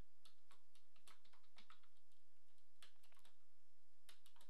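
Typing on a computer keyboard: short runs of key clicks about four times across the stretch, over a steady low hum.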